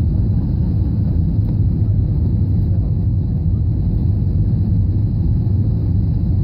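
Steady low rumble of engine and airflow noise inside the cabin of an Airbus A320 in flight, descending on approach to land.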